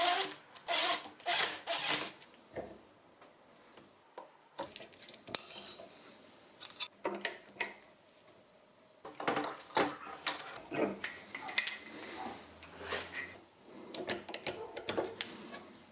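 A cordless impact driver runs in several short bursts in the first two seconds, backing the bolts out of a car AC compressor's clutch plate. Scattered metal clinks, knocks and scrapes of hand tools on the compressor follow as the clutch is dismantled.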